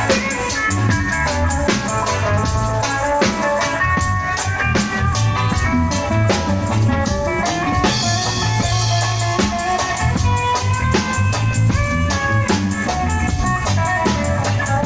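Live reggae band playing an instrumental stretch with no vocals: guitar lines over a drum kit and a steady, prominent bass. A cymbal wash comes in about halfway through.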